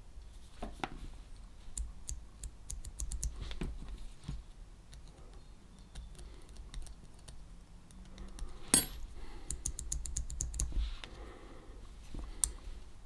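Small clicks and taps as a tiny metal slide switch from an old calculator is handled and worked back and forth while contact cleaner is applied. The clicks come in two runs of quick light ticks, with one sharper click a little under nine seconds in and another near the end.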